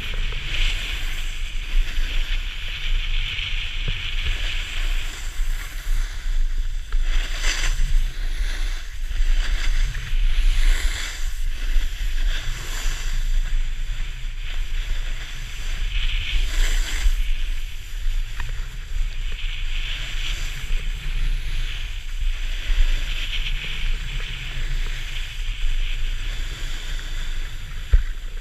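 Wind buffeting the action camera's microphone while riding downhill at speed, with the hiss and scrape of edges on packed snow swelling and fading with each turn.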